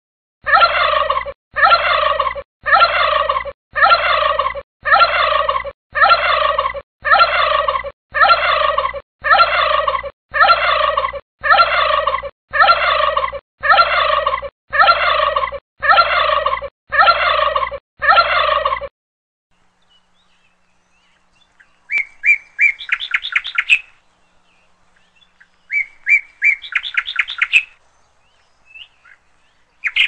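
A bird's call, a short falling call about a second long, repeated in identical copies about once a second some seventeen times, then stopping. After a pause, two short bursts of rapid, high chirping trills from a smaller bird.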